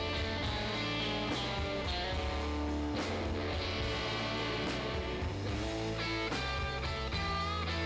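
Background music: an instrumental rock tune led by electric guitar over a steady bass.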